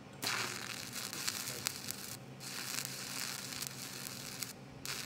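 Shielded metal arc (stick) welding with a 7018 electrode: the arc strikes about a quarter second in and crackles and sizzles with sharp pops as the weave-and-pause cap pass is run up the steel plate coupon. It drops out briefly twice.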